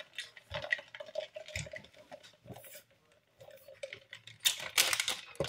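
Soda sipped through a straw from a plastic fast-food cup. Small clicks and taps of the cup being handled come first, then a run of loud slurping sips near the end.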